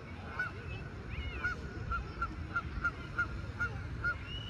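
A goose honking in a quick series of about ten short calls, roughly two to three a second, with a higher, longer call about a second in.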